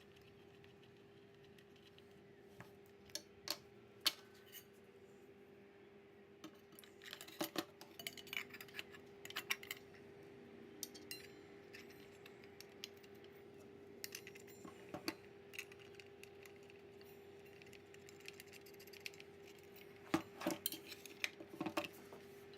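Scattered light metallic clicks and clinks from a circular saw's blade, arbor bolt and washer and its Allen wrench being handled during a blade change, over a faint steady hum.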